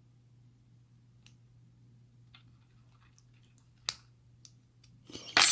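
Faint scattered clicks of lock-picking tools working in a Kryptonite padlock, with one sharper click a little before four seconds in. Near the end comes a louder half-second noisy burst, over a low steady hum.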